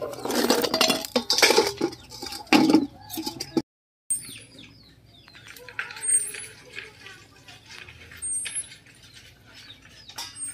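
Horn snail shells clinking and clattering against one another as they are stirred and washed by hand in a basin of water. This runs for about three and a half seconds and cuts off abruptly. A quieter stretch follows with faint short high bird chirps.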